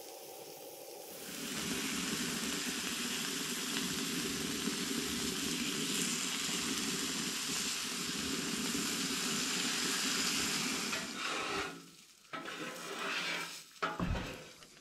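Bacon strips sizzling on a hot flat-top camp griddle, a steady frying hiss that grows louder a second or two in as more strips go down. Near the end the sizzle breaks up into short scrapes and clatters of a metal turner on the griddle.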